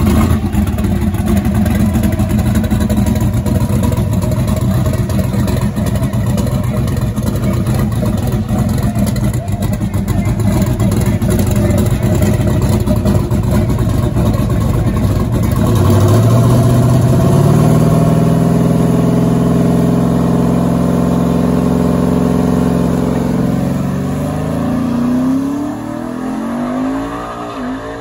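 Loud drag car engine running throughout. About halfway through, a clear engine note comes in and climbs in steps, rising more steeply near the end before dropping off.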